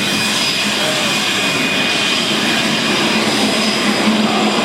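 Airplane engine and propeller running steadily overhead, growing a little louder near the end.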